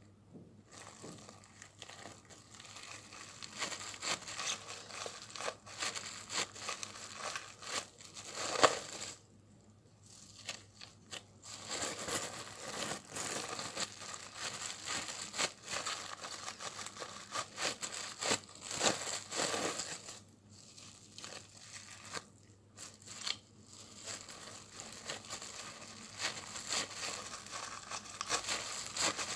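Plastic cling film wrapped over a bamboo sushi mat rustling and crackling as the mat is pressed and rolled around a sushi roll, in irregular stretches with a couple of pauses. One sharp knock comes about eight seconds in.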